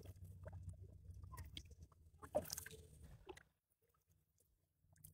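Near silence: a faint low background rumble with a few soft ticks and one brief faint sound about two and a half seconds in, dropping to silence about three and a half seconds in.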